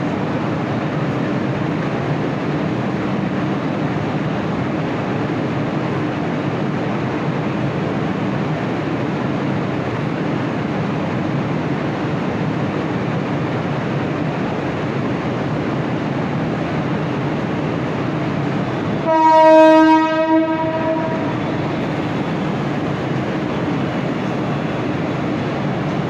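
Mumbai AC suburban electric local train running with a steady rumble. About three-quarters of the way through, its horn sounds once for about two seconds.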